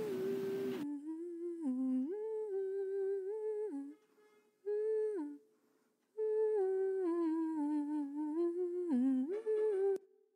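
A person humming a slow, wordless tune: long held notes that step and glide between pitches, with two short breaks partway through, before it stops.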